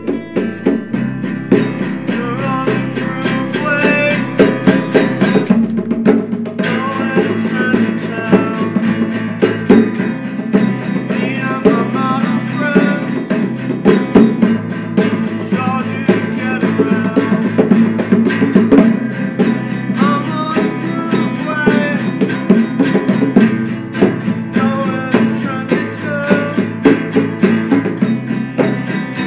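Band music: electric bass and strummed acoustic guitar over a steady drum beat.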